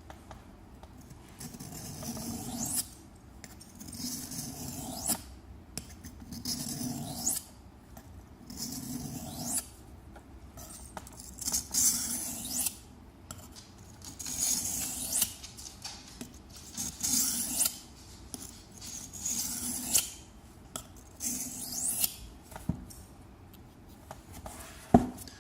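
Steel knife blade stroked by hand across a Trilancer whetstone, giving a gritty scrape on each pass, roughly one stroke every second or two.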